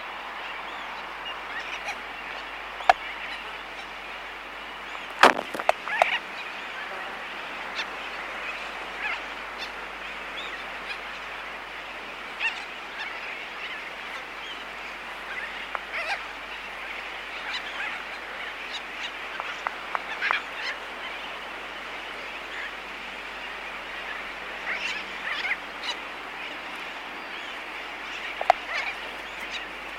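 Laysan albatross colony close up: sharp bill clicks at irregular intervals, the loudest about five seconds in, over a steady distant chatter of a sooty tern colony.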